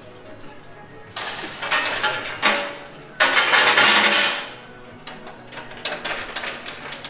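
Coins clattering in a coin pusher machine: two loud rushes of coins spilling and sliding, about a second in and again about three seconds in, with scattered clicks of single coins before and after.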